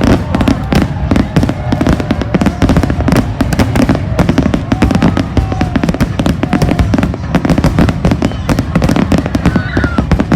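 Fireworks going off in a dense, continuous barrage of rapid bangs and crackles, many reports a second.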